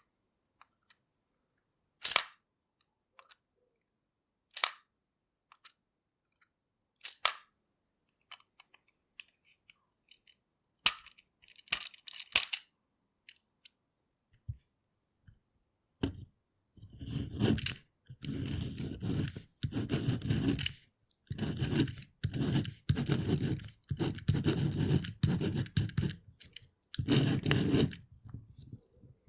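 Novelty pen: a few separate clicks and taps, then from about halfway a run of short scratching strokes as it writes on paper.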